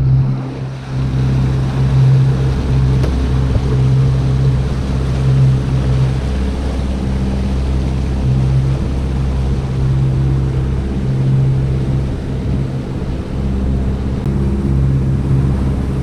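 Motorboat engine running steadily under way, a low hum that swells and eases a little, over the wash of the boat's wake.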